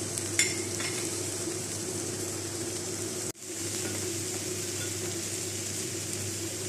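Chicken sizzling on foil on an electric grill, over a steady hum, with a short click about half a second in. The sound breaks off for an instant about halfway, then carries on the same.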